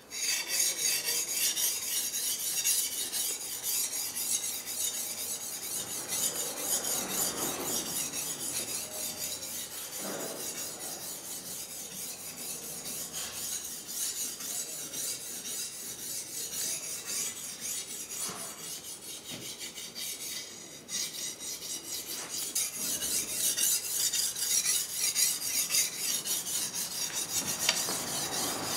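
Small hand-held sharpening stone stroked rapidly back and forth along a katana's steel blade, stone scraping on steel in quick repeated strokes.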